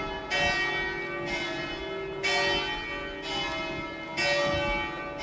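The bells of St Mark's Campanile ringing: a stroke about every second, with bells of different pitch sounding in turn and each ringing on into the next.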